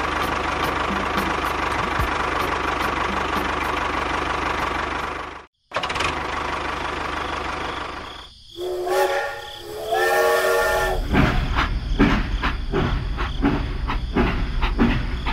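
A steady hiss-like running noise that cuts out briefly about five and a half seconds in, then a steam-train whistle blowing for about two seconds, followed by the rhythmic chuffing and clatter of a train.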